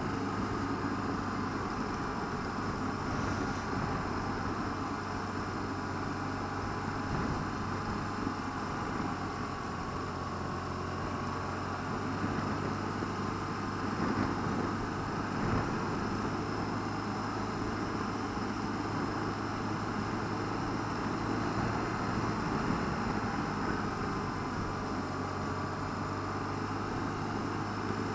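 BMW R1200RT's flat-twin engine running steadily at touring speed, mixed with steady wind and road noise.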